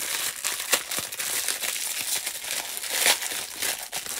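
Packaging crinkling and rustling as it is handled, with sharper crackles about a second in and around three seconds in.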